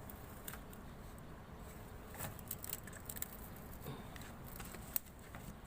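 Scattered light clicks and rustling handling noise, with one sharper click about five seconds in.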